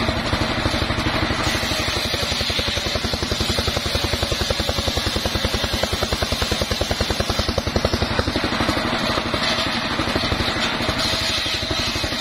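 Engine-driven bench sawmill with a large circular blade ripping a mahogany log into boards. The engine runs steadily with an even, rapid pulsing, and the blade's cutting noise sits over it.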